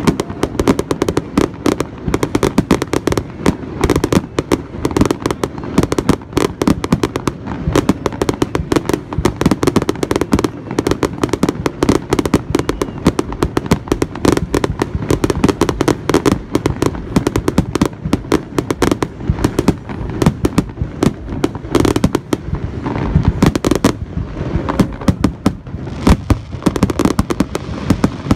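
Aerial fireworks finale: a continuous barrage of shell bursts and crackling, the bangs coming many times a second and overlapping without a pause.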